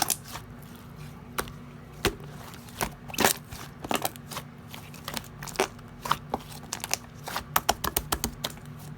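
Slime being squeezed and poked by hand, giving irregular sticky clicks and pops that come faster near the end, over a steady low hum.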